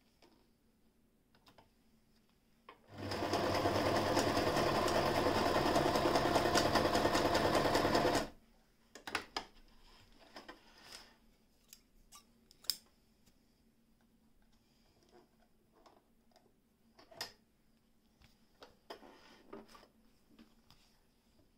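Frister & Rossmann 202 electric sewing machine running at a steady speed and stitching for about five seconds, starting about three seconds in and stopping abruptly. Afterwards come scattered faint clicks and handling noises as the fabric is moved.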